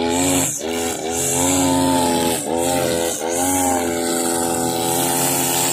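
Husqvarna 542RBS backpack brush cutter's two-stroke engine running at high revs while its nylon trimmer line cuts grass. The engine pitch dips briefly and climbs back several times.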